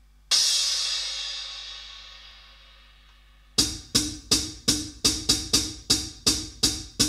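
Electronic drum machine playing: one cymbal-like hit that dies away over about three seconds, then sharp percussive hits repeating about three times a second, each with a short low tone under it.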